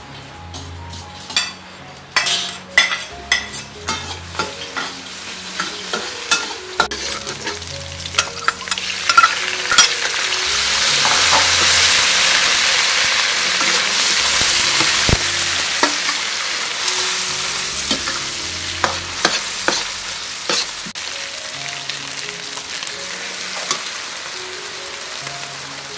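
Garlic, dried shrimp, dried squid and ground pork frying in oil in a wok, with a spatula clacking and scraping against the pan as they are stirred. The sizzling swells loud about ten seconds in, then slowly eases off.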